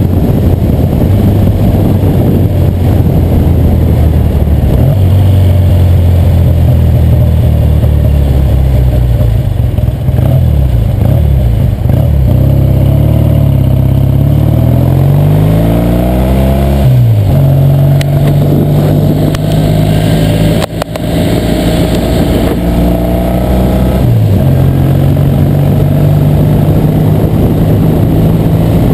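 A 1966 Triumph TR6R Trophy's 650cc vertical-twin engine running under way. Its note climbs in pitch as it accelerates, drops abruptly about 17 seconds in, and dips briefly again about 24 seconds in.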